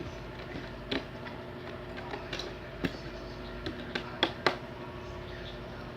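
Slime being pressed and squeezed by hand, giving a handful of sharp wet clicks and pops from its air bubbles, the loudest about four and a half seconds in.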